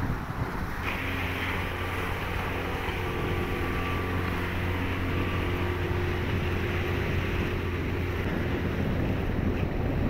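Outboard motor running steadily at speed, a constant hum that comes in clearly about a second in, under wind blowing on the microphone and the rush of water.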